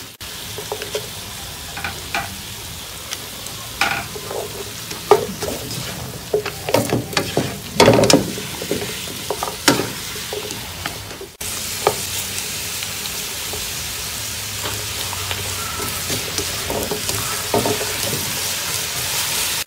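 Chicken wings in a palm sugar and vinegar sauce sizzling in a nonstick wok as a plastic spatula stir-fries them, with repeated scrapes and knocks against the pan. About halfway through, the stirring eases and the sizzle carries on steadier.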